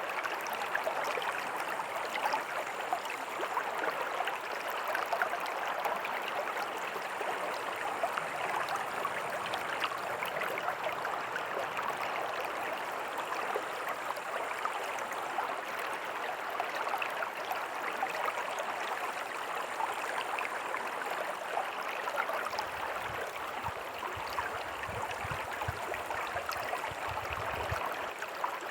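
A stream of water running and burbling steadily, with a dense patter of small splashes; a low rumble joins in for several seconds near the end.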